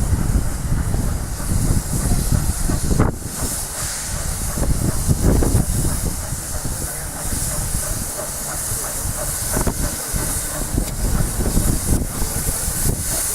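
Steam rail motor No. 93 running under steam: a steady hiss of steam over the low rumble of the vertical-boilered railcar on the track, with irregular knocks and clatter.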